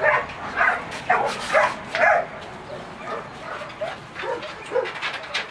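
A dog giving a series of short, high-pitched calls: about five loud ones in the first two seconds, then softer, more scattered ones.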